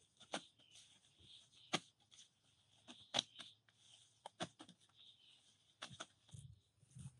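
Hands slapping and pressing wet mud onto a hut wall: irregular sharp slaps and pats about a second or two apart, with a couple of duller thuds near the end, over a steady high-pitched hiss.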